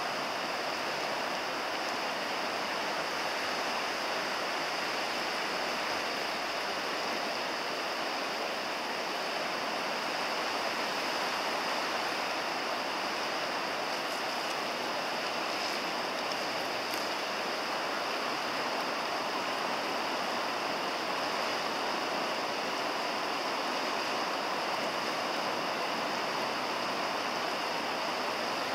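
Steady rush of a wide, fast river running over a shallow, rippled bed.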